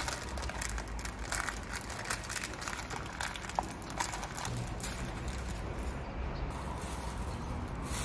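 Plastic popsicle wrapper crinkling and rustling as it is torn and pulled open, a dense run of small crackles over a steady low background rumble.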